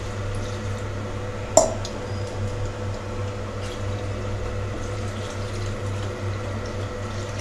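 Water poured in a steady stream from a sombu into a metal kadai of cooked vegetables, splashing into the pan and filling it. A single short click about one and a half seconds in.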